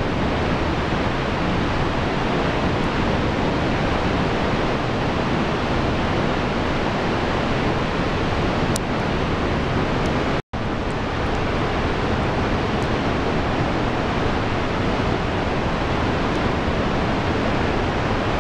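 Steady rushing of Vernal Fall's falling water close by, a dense even roar with no change in level. It cuts out for an instant about ten seconds in.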